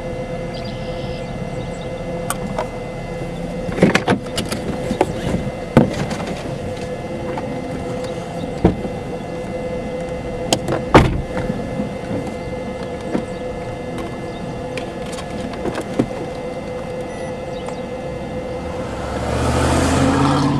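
Steady outdoor background with a constant hum and scattered clicks and knocks; near the end a pickup truck drives past close by, its engine and tyre noise swelling up and falling away.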